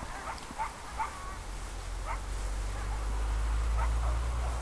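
Several short, high animal yips spread through, faint against a steady low rumble.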